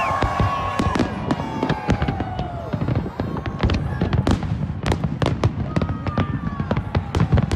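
Aerial fireworks bursting in a fast, dense string of bangs and crackles. Falling whistling tones trail off in the first couple of seconds.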